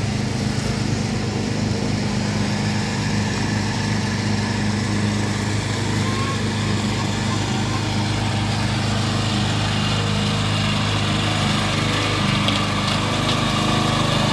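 Log splitter's small gas engine running steadily at an even pitch.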